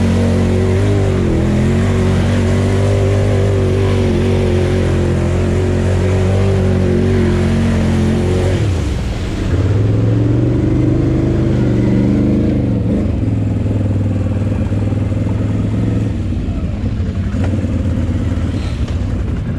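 Can-Am Renegade 800 quad's V-twin engine running under steady throttle as it ploughs through a muddy pond, water splashing against the machine. About nine seconds in the throttle drops off briefly, then the engine revs up again and settles to a lower, steady run on dry ground.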